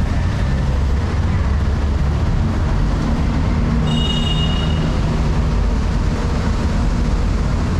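Steady low rumble of a heavy vehicle in motion, with a brief high squeal about four seconds in.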